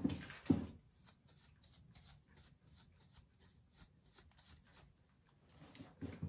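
Wide-toothed hair pick raked repeatedly through thick, dry curly hair: a soft scratchy rustle about three strokes a second. A louder knock and rustle of handling comes in the first half-second.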